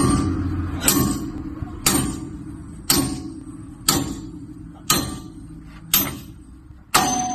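Heavy hammer striking a steel truck wheel hub, hard metallic blows about once a second, each with a short ring. A steady low hum runs beneath.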